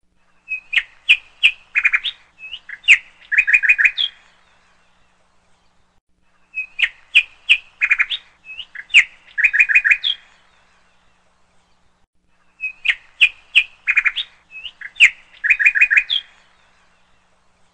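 Songbird chirping and trilling, laid over the pictures as a recording: the same short phrase of sharp chirps, quick whistled glides and rapid trills plays three times, about six seconds apart.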